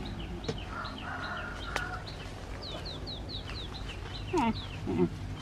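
Birds chirping: a run of quick, high, falling chirps, about three a second, with two lower falling calls near the end.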